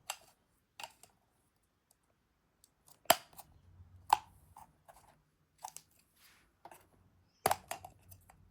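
Plastic parts of a mini cordless vacuum cleaner being handled and fitted together: a string of sharp clicks and knocks as the filter and dust bin are pushed and twisted into place, the loudest about three seconds in.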